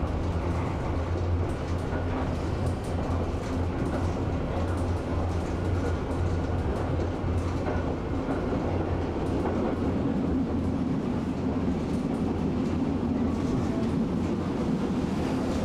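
Tram running along its track, heard from on board: a steady low hum with even running noise of the wheels on the rails and faint scattered ticks.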